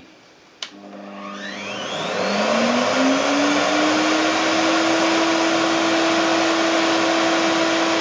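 Proxxon CW-matic workshop vacuum switched on with a click, its motor spinning up in a rising whine over about two seconds and then running steadily and loud. This loudness is normal for it, not a sign of a clog or a bad connection.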